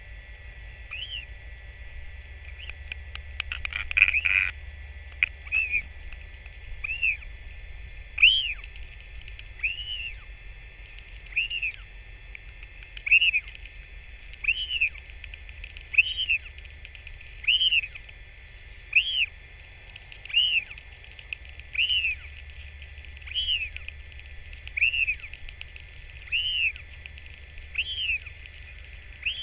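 A bird giving one short, high, arched chirp over and over, about once every second and a half, after a brief clatter of clicks about four seconds in.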